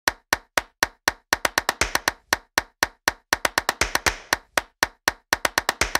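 A percussion beat of short, sharp, dry clap-like hits, evenly spaced at about four a second with quicker runs of hits between, each one cut off clean.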